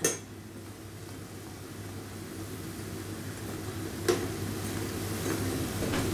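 Dough balls deep-frying in hot oil: a steady sizzle that grows slowly louder, while a slotted metal spoon turns them, with one sharp click about four seconds in and a few faint ticks after.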